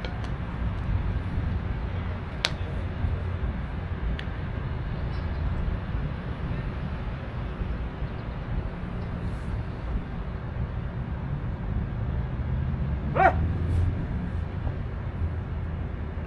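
Steady low rumble of outdoor background noise, with a couple of sharp clicks and one short yelp-like call about 13 seconds in.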